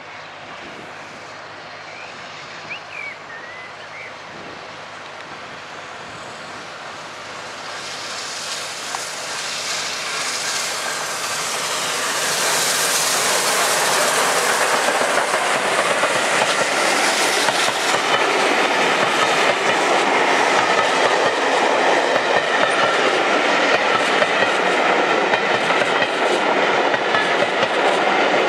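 Steam express hauled by the Peppercorn A1 Pacific 60163 Tornado, approaching at speed and growing louder over about twelve seconds until the locomotive rushes past. The carriages follow with a steady clickety-clack of wheels over the rail joints.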